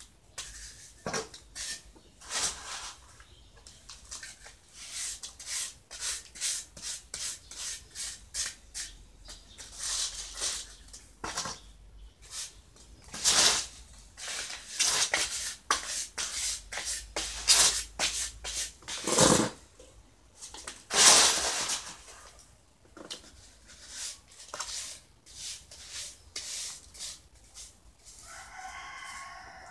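Steel hand trowel scraping and hands packing damp cement mortar into a mould: a rapid run of short scrapes, with a few louder, longer ones in the middle. A chicken calls briefly near the end.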